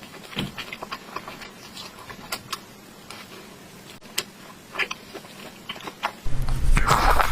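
Close-miked eating sounds: scattered crisp clicks and wet smacks from chewing spicy hot pot vegetables. About six seconds in, the sound abruptly gets louder, with a low rumble and a loud burst of eating noise.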